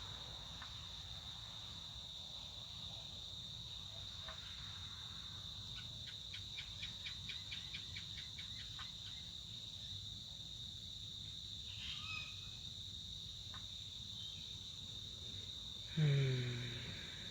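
Insects chirring steadily in one high, even tone, with a run of quick chirps in the middle. A brief low voice-like sound falls in pitch near the end.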